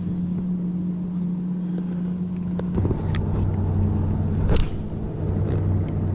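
A motorboat engine running steadily, its pitch shifting about three seconds in. Two sharp knocks sound about three and four and a half seconds in.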